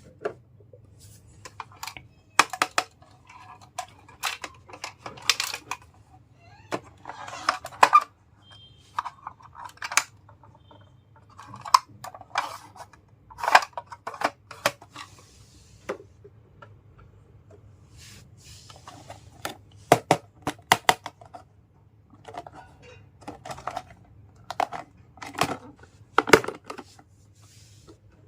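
Small plastic toy pieces and packaging being handled during an unboxing: irregular clicks and taps mixed with short rustles.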